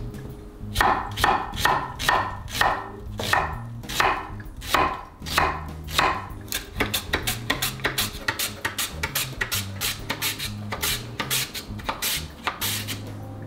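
Chef's knife slicing through an onion onto a wooden cutting board: about ten crisp cuts roughly two a second, then quicker, lighter cutting strokes.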